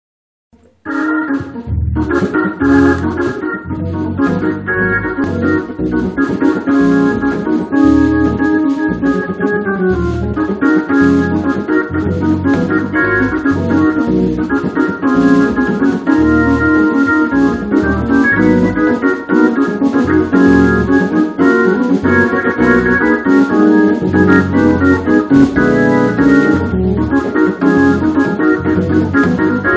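Two-manual organ playing gospel chords over a pulsing bass line, starting about a second in.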